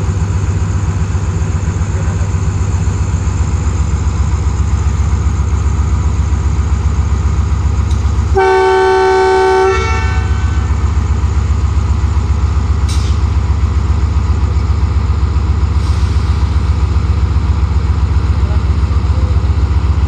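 Diesel-electric locomotive idling with a steady low throb, then sounding one horn blast of several pitches at once, a little over a second long, a few seconds before the middle: the departure signal.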